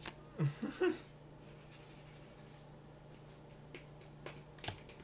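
Low steady hum with a short vocal sound a little under a second in, then three sharp clicks near the end, playing cards being tapped or laid on the table.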